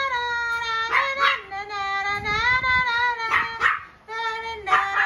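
Pomeranian and Corgi puppies whining and crying in long, drawn-out notes that step down in pitch, broken by short yips about a second in, around three and a half seconds, and again near the end.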